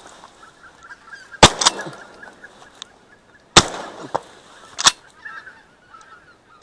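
Shotgun shots from two hunters firing at geese overhead: two almost together about a second and a half in, then single shots at about three and a half and five seconds, and another right at the end. Geese honk faintly between the shots.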